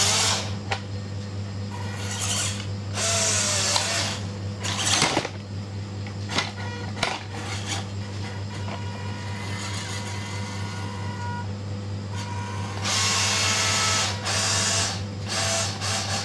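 Small electric motor and gear drive of a WPL C24 1:16 RC crawler whining in spurts as it is driven. There are louder bursts about three seconds in and again near the end, with a thinner whine that changes pitch in between.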